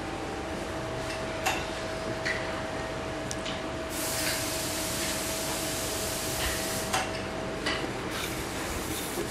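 Workshop background noise with a steady faint machine hum, light clicks and taps of small plastic parts being handled on a bench, and a hiss from about four to eight seconds in.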